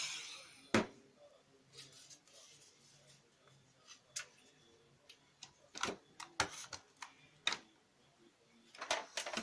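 Scattered light clicks and knocks of laser printer parts being handled, one sharper knock about a second in and a short cluster near the end.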